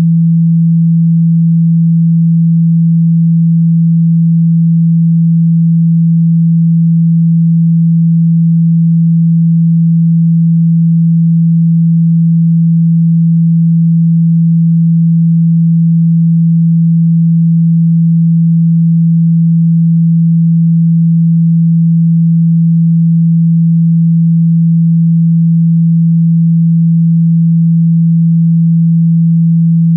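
A single steady, low-pitched pure electronic tone, held unchanged, as played for chakra meditation.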